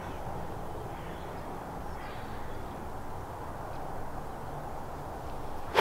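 Steady, quiet open-air background hum, ending in a single sharp crack of a golf club striking the ball.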